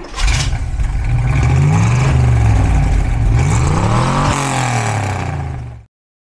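1968 Oldsmobile 442's 400 cubic-inch V8 running and being revved, its pitch rising and falling once about four seconds in. The sound cuts off abruptly near the end.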